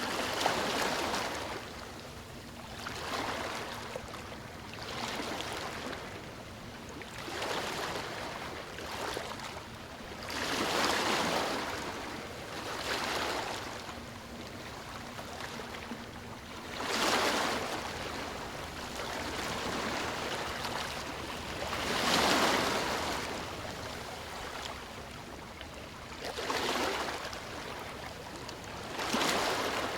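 Sea waves breaking and washing up a shore. Each wave is a hissing surge that swells and ebbs, one every two to five seconds, a few of them louder than the rest.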